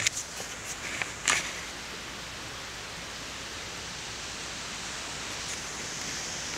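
A few footsteps crunching in wet snow in the first second and a half, then a steady even hiss.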